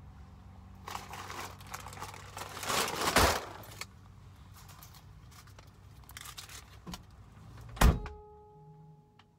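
Large plastic bag of pet kibble rustling and crinkling as it is loaded into a car trunk, loudest about three seconds in, over a low steady hum. Near the end the trunk lid slams shut with one sharp thud, followed by a faint steady tone.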